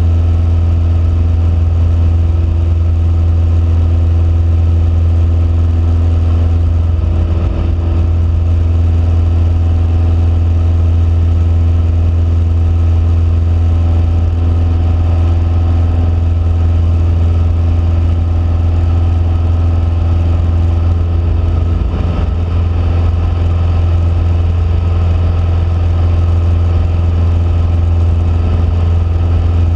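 Cessna 172P's four-cylinder Lycoming engine and propeller droning steadily in flight, a loud, even low hum.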